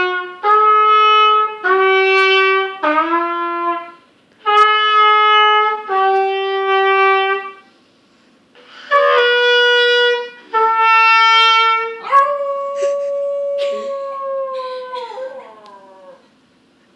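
A trumpet plays about eight held notes one after another, with short gaps between them. After the last one a dog howls a single long note that sags in pitch at the end before fading.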